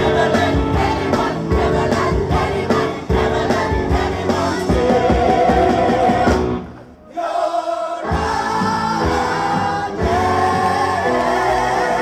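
Live show-tune performance: a man and a woman singing into handheld microphones over backing singers and a band with a steady beat. Just past halfway the music breaks off for about a second, and the full band comes back in about a second later.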